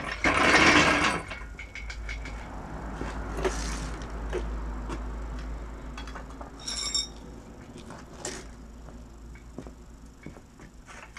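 Metal being handled: a loud clattering scrape about half a second in, then scattered knocks and, about seven seconds in, a short ringing metallic clink.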